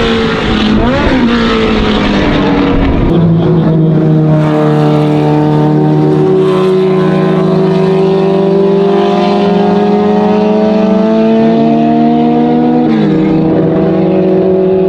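Historic racing car engines at high revs. A couple of quick rises and falls in pitch in the first seconds, then a long, steady engine note that climbs slowly and drops in pitch twice near the end.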